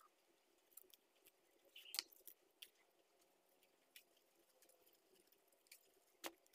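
Near silence with a few faint, sharp clicks and taps. The loudest comes about two seconds in and another near the end.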